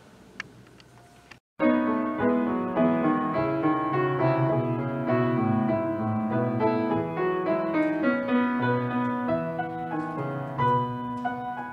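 Instrumental piano music that starts after a second and a half of faint room tone with one small click, then plays on with clearly struck notes.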